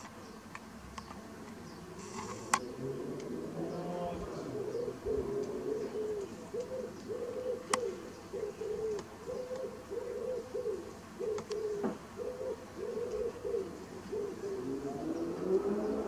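A pigeon cooing in repeated low phrases through most of the stretch, with two sharp clicks, the first about two and a half seconds in.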